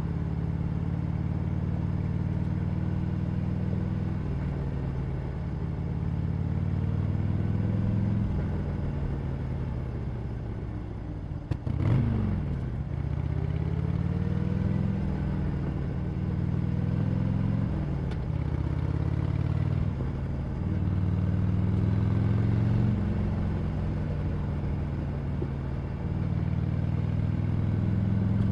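Harley-Davidson Sportster Iron 883's air-cooled V-twin with its stock exhaust, riding through the gears: the engine note rises under throttle and drops back at each shift, several times over. Near the middle, after a brief easing off, there is one short sharp bang.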